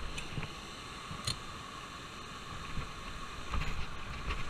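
Steady, muffled hiss of foaming spillway water, with a few light clicks and knocks from handling a rod and spinning reel, more of them near the end.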